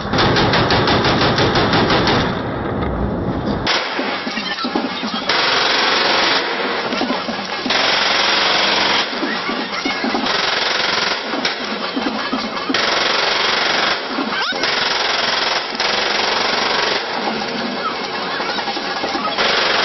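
AK-47 rifles firing on full automatic into the air, in repeated bursts of rapid shots that run together. The first burst is long, and shorter bursts follow every second or two.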